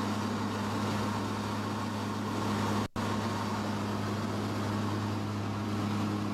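The twin turboprop engines and propellers of a CASA C-212 Aviocar in flight, heard from inside the cockpit as a steady, even drone with a low hum under it. The sound cuts out for an instant about three seconds in.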